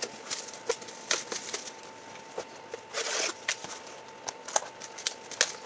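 A box of trading cards being handled and opened: irregular light clicks and taps of cardboard and cards, with a short rustle about three seconds in.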